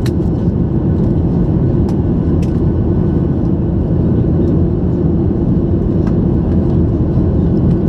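Steady drone of a Boeing 737-800's CFM56 engines and airflow, heard inside the cabin in flight: a loud, even, low rumble with a few faint clicks.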